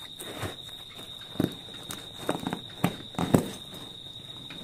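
Padded cordura rifle bag being handled and turned over on a floor: fabric rustling with a handful of short knocks and thumps, the loudest a little after three seconds.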